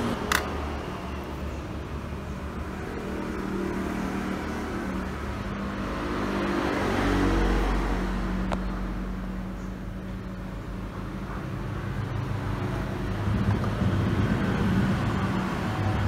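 Engine hum of passing road traffic. One vehicle swells louder about seven seconds in, and another builds up near the end.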